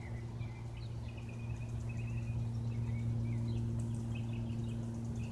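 Cessna light aircraft's engine and propeller droning overhead at a steady pitch, growing slightly louder towards the middle. Small birds chirp over the drone.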